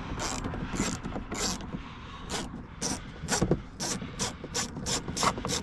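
Hand ratchet with a 7 mm socket turning a door-panel fastener loose: a run of short clicking strokes, about two a second at first and quickening in the second half.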